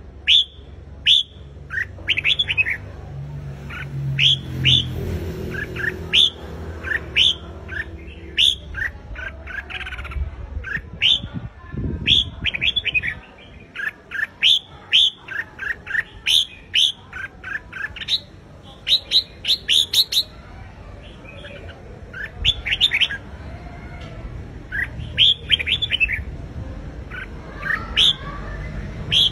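Red-whiskered bulbul singing: a long series of short, quick whistled phrases of a few sweeping notes each, coming one after another with brief gaps.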